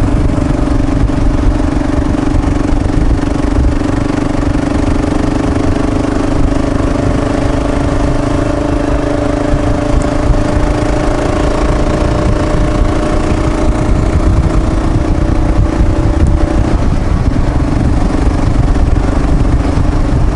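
Kawasaki KLR650 single-cylinder engine with an aftermarket Lexx exhaust, running steadily at cruising speed, heard from the rider's position with wind rumble on the microphone. The engine note holds steady and shifts slightly about three-quarters of the way through.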